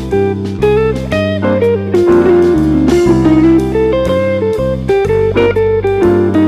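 Background music led by guitar, with bass notes and a steady beat.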